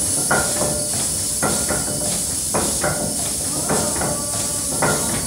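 12"x10" steam hoist engine running slowly while warming up: a regular knock and chuff about once a second, each with a lighter beat between, over a steady hiss of steam.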